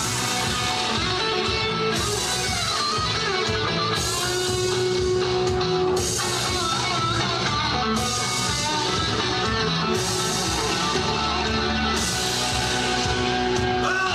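Rockabilly-style rock music playing at a steady loud level, with guitar and a drum kit.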